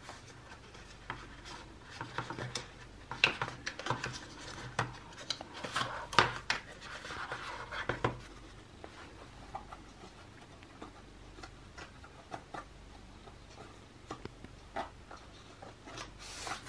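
White cardboard watch-band boxes being handled and slid against each other: scattered light taps and scrapes, with a longer rubbing stretch about six to eight seconds in, then only a few small clicks.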